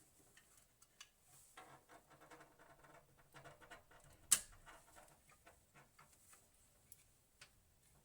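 Faint clicks, taps and light scraping of small computer parts being handled, with one sharper click about four seconds in.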